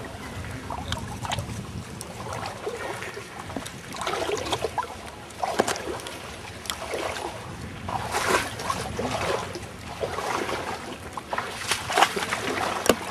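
Rushing, splashing water coming in uneven surges, with sharp splashes.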